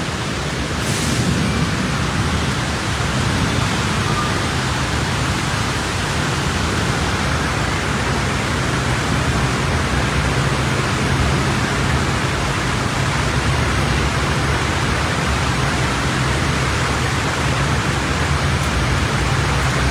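Steady rushing noise of rain together with traffic wading through a flooded road: cars and motorcycles pushing through deep floodwater.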